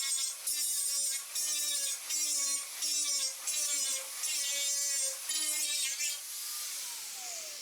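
Power tool spinning a wire wheel and scrubbing paint off sheet steel in short repeated presses, about one and a half a second, the motor's pitch sagging under each press. Near the end the tool is let off and its whine falls away as it spins down.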